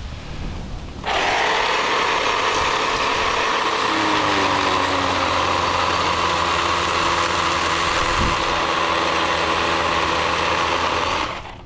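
Battery-powered electric chainsaw running at a steady speed, starting about a second in and stopping just before the end.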